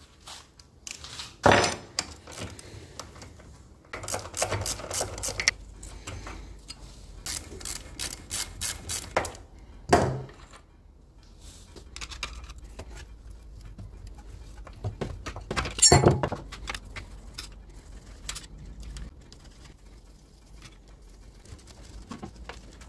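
Metal hand tools clinking and knocking on a Minsk motorcycle engine's casing as the oil drain plug and a cover are unscrewed to drain the gearbox oil. There is a sharp knock near the start, a run of quick clicks around eight seconds in, and further knocks about ten and sixteen seconds in.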